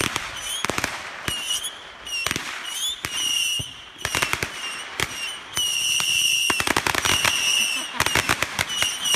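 Fireworks going off in a barrage: firecrackers popping in fast, irregular strings, with several whistling fireworks screaming over them. The longest whistles come just past the middle.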